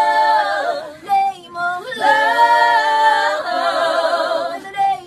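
Four women singing a cappella in harmony, holding long chords. The singing breaks off about a second in and starts again a second later, with the voices wavering in vibrato near the end.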